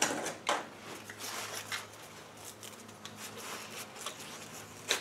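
Sandpaper rustling and rubbing lightly on a steel transfer box shift-linkage shaft, with a few small sharp clicks of the metal part being handled.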